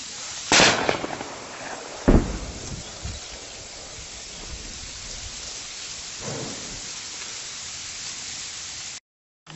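Steady rustling and wind-like noise from a handheld microphone moving through dry reeds, broken by two sharp bangs about a second and a half apart early on, and a duller knock later.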